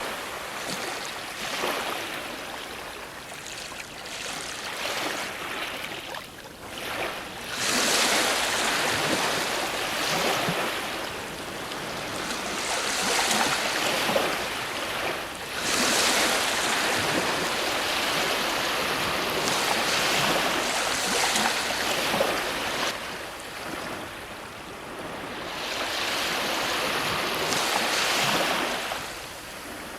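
Ocean waves breaking on a shore: the surf swells and ebbs, with several louder breakers washing in one after another.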